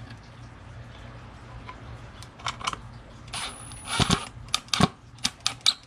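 Milwaukee cordless impact driver whining briefly about three seconds in, driving a screw into a wooden board until just its point shows through. A string of sharp clicks and knocks follows.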